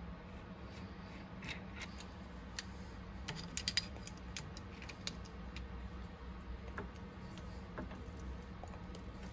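Small metal clicks and clinks of hand work on the end of a milling table leadscrew: nuts handled and threaded on, locking pliers put on, with a quick run of sharper clicks about three and a half seconds in. A steady low hum runs underneath.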